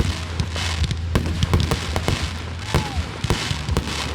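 Consumer fireworks going off: many rapid pops and bangs, close together, with crackling between them.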